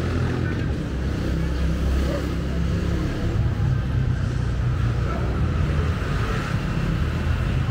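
A motor vehicle's engine running, a steady low rumble, over city street noise.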